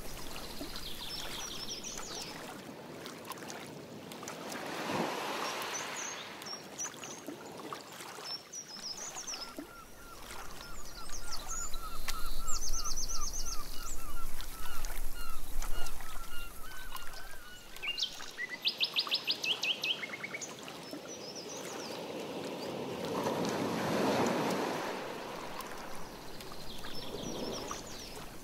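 Birds chirping and trilling across the lake, with a run of repeated calls in the middle. Twice, a canoe paddle stroke swishes through the water.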